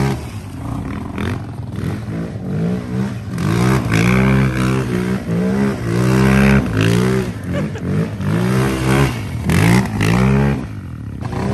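Small single-cylinder pit bike engine revving up and down over and over, its pitch rising and falling every second or so.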